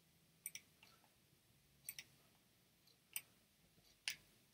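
Faint, sharp clicks of a computer mouse, about six in all, some in quick pairs, against near silence.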